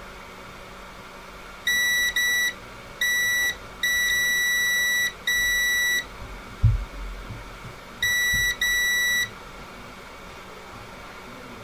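Multimeter continuity tester beeping on and off: seven beeps of one steady high tone, uneven in length, in two clusters. A short low thump falls between the clusters.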